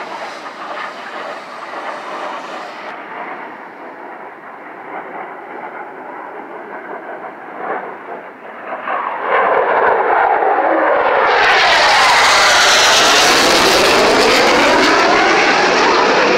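Jet aircraft in flight, fainter for the first several seconds, then growing loud from about nine seconds in as it makes a close pass, its noise sweeping down and up in pitch with a phasing whoosh.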